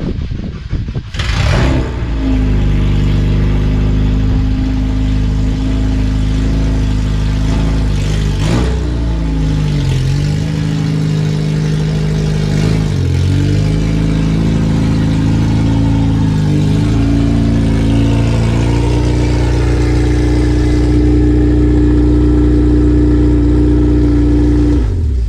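Car engine starting about a second and a half in, then running with a steady note whose pitch dips briefly and comes back up three times.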